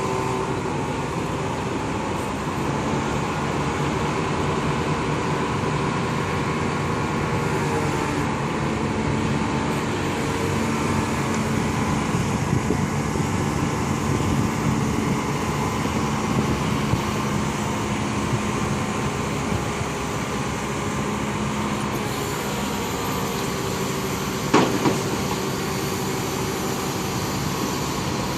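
Crane truck's diesel engine running steadily, with one sharp knock near the end.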